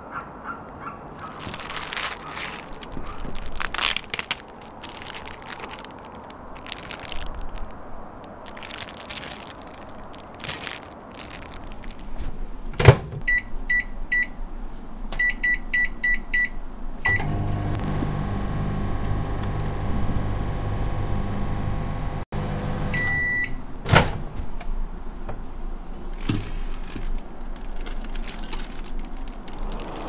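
Plastic food packaging crinkling and rustling, then a loud clunk of the microwave door and a run of short keypad beeps as an LG microwave oven is set. The microwave hums steadily for several seconds, gives one longer beep, and the door clunks again before more packaging rustle.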